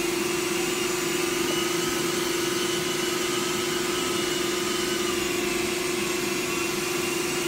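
Rotovac rotary extraction carpet cleaner running on carpet, its spinning heads and suction working together as a steady, unchanging hum with a hiss over it.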